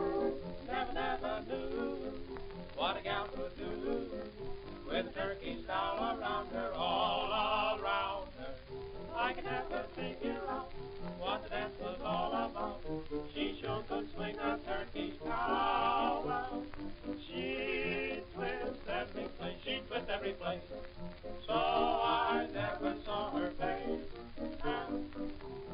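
Music: a song with a singer's strongly wavering voice over instruments.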